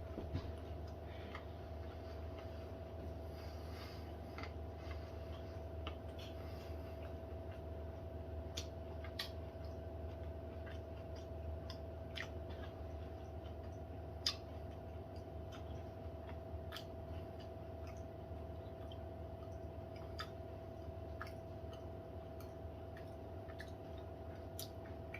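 Someone chewing a chocolate-and-nut protein bar, heard as faint, irregular clicks and crunches, one a little sharper about two-thirds of the way through, over a steady electrical hum.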